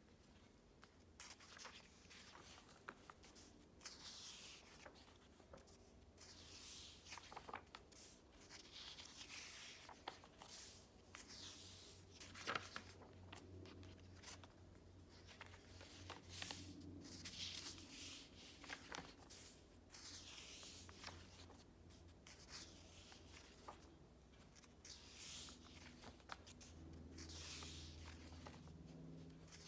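Paper pages of a bound journal being turned by hand, one after another. Each page gives a soft swish every second or two, with small taps of paper and fingers.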